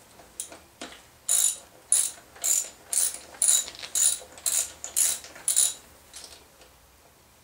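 Hand ratchet and socket clicking in short runs, roughly two a second, as a spark plug is backed out of an outboard motor. The runs start about a second in and fade away near the end.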